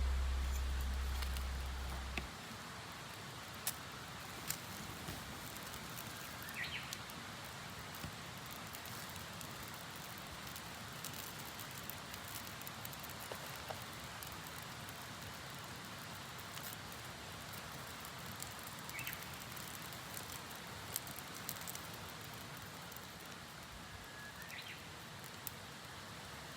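Small fire burning quietly, a steady hiss with sparse faint crackles and pops. A few short rising whistles sound about six seconds in, again near the middle and near the end.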